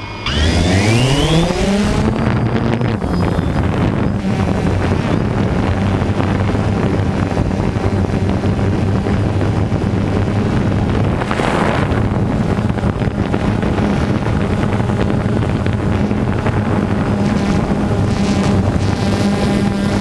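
DJI Phantom 2 quadcopter's electric motors and propellers spinning up for takeoff, the whine rising in pitch over about two seconds, then settling into a steady buzz as it climbs and hovers, heard from on board the drone. Wind noise on the microphone rises and falls over it.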